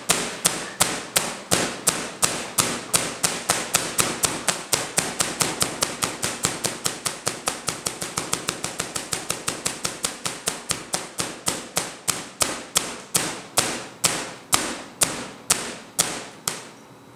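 Three-phase Tesla coil firing: a steady train of sharp spark-discharge cracks, about three a second, coming faster in the middle and slowing to about two a second near the end before stopping.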